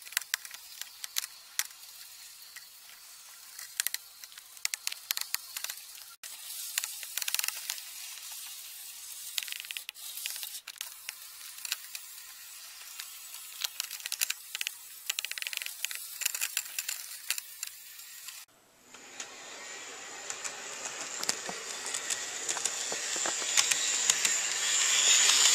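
HO scale model train running on the track: a thin, hissy rolling noise with many small clicks from the wheels on the rails. After a short break, the rolling sound of a locomotive grows steadily louder as it comes right up close.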